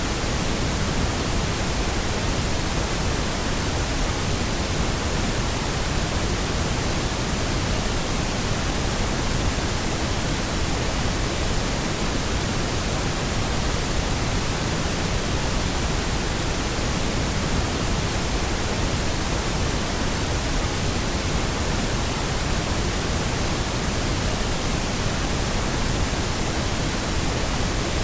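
Steady, unbroken pink noise: an even hiss with no tones or events.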